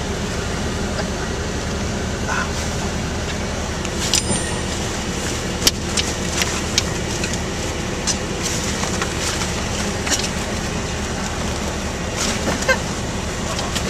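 Steady diesel engine and drivetrain drone heard from inside the cab of an M-ATV armoured vehicle. Scattered sharp clicks and rattles from loose gear and fittings come through it, the loudest about six seconds in.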